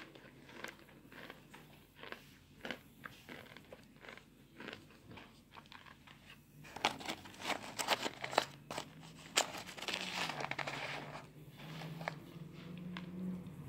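Cornstarch chunks crunching and crumbling in a string of sharp crackles, thickest from about seven to ten seconds in. A low steady hum comes in near the end.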